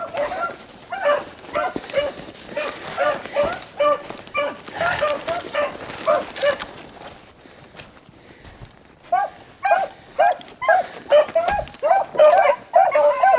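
Beagles baying on a rabbit's track, a run of short repeated bawls that shows the hounds are running the scent. The baying thins out briefly past the middle, then comes back louder and faster.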